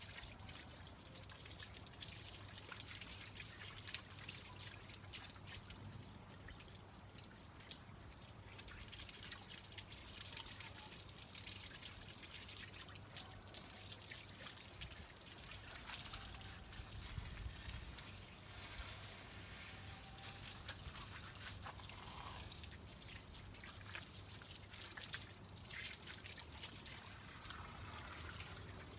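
Faint water trickling from a wall tap and splashing on tiled paving, with small irregular drips and spatters.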